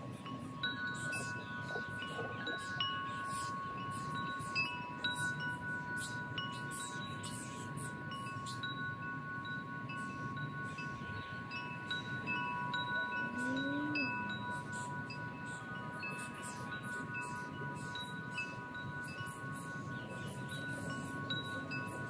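Wind chime ringing in the breeze: several tones ring on and overlap while new, higher notes keep being struck. A short low swooping sound comes a little past halfway.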